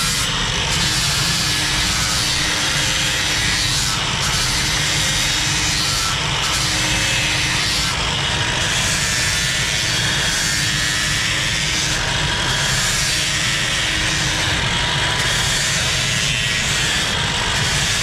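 A steady, loud mechanical roar that runs without a break or any strikes, with faint low tones rising and fading within it.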